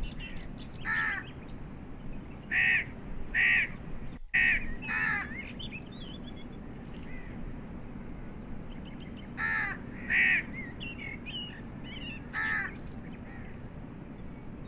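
A crow cawing outdoors, about eight short harsh caws in pairs and threes, with small birds chirping faintly in between.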